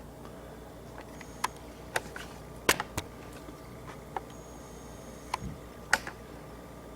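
Scattered light clicks and knocks, a dozen or so at irregular intervals, over a faint steady hum: objects being handled.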